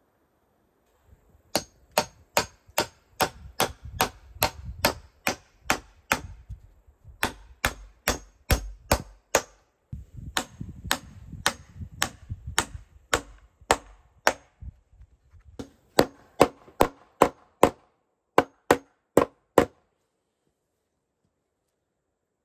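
A hammer is driving nails into crossed wooden poles, with quick, even blows about three a second. The blows come in several runs with short breaks between them.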